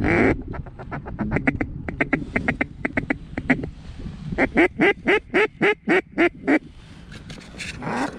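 Mallard quacking: one loud quack, then a fast run of short chuckling calls for about three seconds, then a series of about nine loud quacks, roughly four a second, and one more quack near the end.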